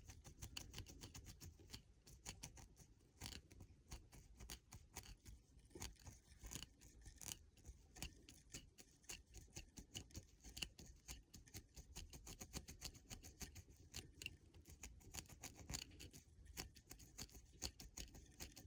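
Faint, quick, irregular scratching and ticking of a crochet hook being worked through a dreadlock and its extension hair, many small strokes a second.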